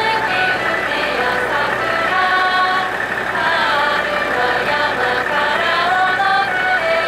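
A group of women singing a slow song together, with long held notes, over the steady low hum of an idling diesel railcar.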